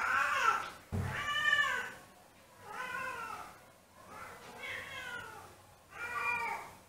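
Siamese cat howling for its absent owner while left alone: a series of five drawn-out meows, each rising then falling in pitch, the second one, about a second in, the loudest.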